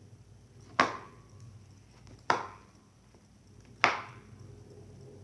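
Three sharp knocks about a second and a half apart, each with a short ring: a spoon being knocked against the rim of the slime mixing bowl.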